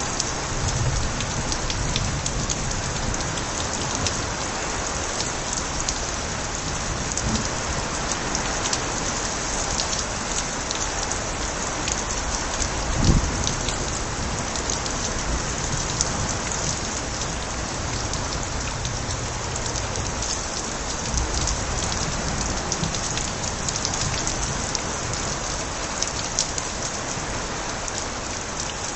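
Steady heavy rain with water pouring from overflowing gutters, with many sharp individual drop splashes. A single low thump, the loudest moment, comes about halfway through.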